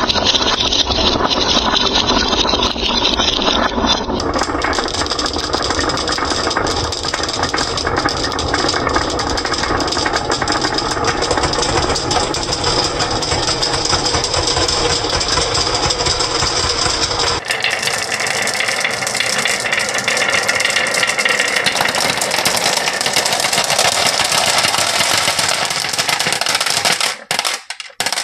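Many glass marbles rolling down a carved wooden wave-track marble run: a continuous rolling rumble full of small clicks as the marbles knock against each other and the wood. The sound breaks up and stops just before the end.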